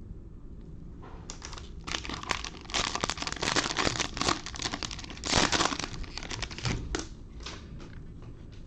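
A plastic-wrapped trading card pack crinkling and tearing as it is opened by hand, in a dense run of rustles that swells about halfway through and fades near the end.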